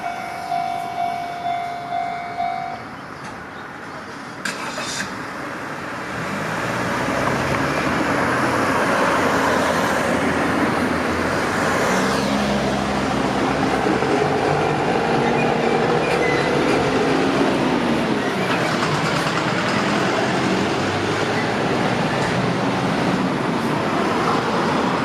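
Level-crossing warning alarm ringing in electronic tones about twice a second, stopping about three seconds in as the crossing clears after the train. From about six seconds a road vehicle's engine and tyre noise rises and runs steadily.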